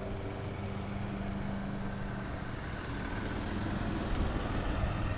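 An engine running steadily at idle: a constant low hum with rumble underneath.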